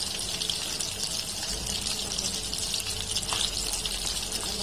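Small battered fish deep-frying in hot oil in a metal wok: a steady sizzle with dense fine crackling.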